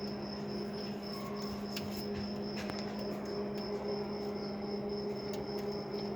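Electrode (stick) welding machine humming steadily, with a light crackle and a few scattered clicks.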